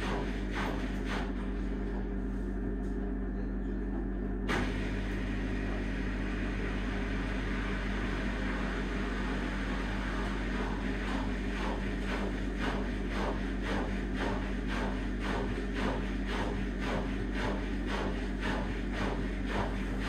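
Washing machine running with pop-it toys in the drum: a steady motor hum with a rhythmic pulse of noise about twice a second. About four and a half seconds in, a brighter hiss comes in suddenly.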